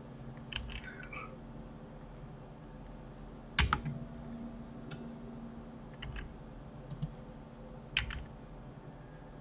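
Computer keyboard and mouse clicks while working in 3D modelling software: a few separate clicks spread a second or two apart, the loudest about three and a half seconds in, over a faint steady hum.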